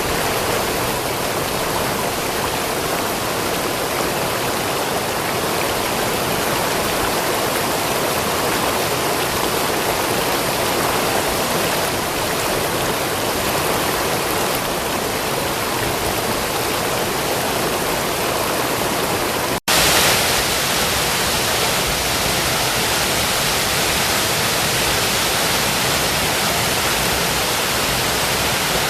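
Small brook rushing steadily over stones, loud like a little waterfall. The sound drops out for an instant about two-thirds of the way in, then carries on slightly brighter.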